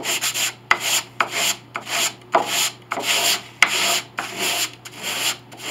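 Hand sanding with coarse sandpaper on a wooden block, rubbed back and forth over the wooden edge of a Steinway B piano case in even strokes, about two a second. The edge is being flattened to a true surface before new veneer is laid.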